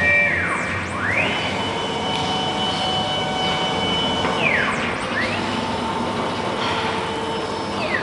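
1325 CNC wood router's axis drive motors whining as the gantry and spindle travel over the table. The whine glides down as an axis slows and reverses, then rises and holds while it travels, falling and rising again around the middle and falling once more near the end, over a steady machine hum.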